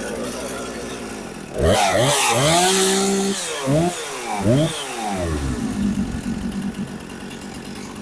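Husqvarna 455 Rancher chainsaw's two-stroke engine idling, then revved up and held for about two seconds and blipped twice more, dropping back to a steady idle about five seconds in.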